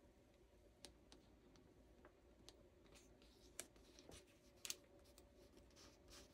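Near silence, broken by a scatter of faint clicks and light scratches of a pen-like tool pressing and smoothing a sticker onto a paper planner page.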